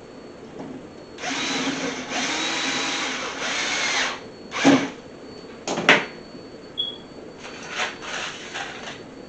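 Power drill running in three back-to-back runs of about a second each with a steady motor whine, then a few short, sharp trigger bursts and some weaker short runs near the end.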